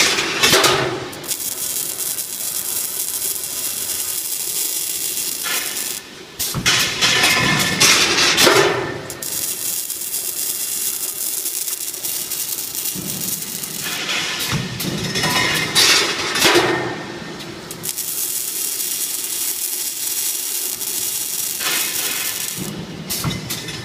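Double-head scaffolding welding machine at work: a steady hissing, crackling welding noise lasting several seconds at a time, broken by short pauses and louder metallic clattering between welds.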